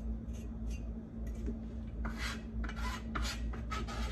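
Chef's knife blade scraping chopped fennel and parsley across a plastic cutting board, to gather the herbs into a jar of dressing. There are a few light strokes at first, then several longer, louder scrapes from about two seconds in.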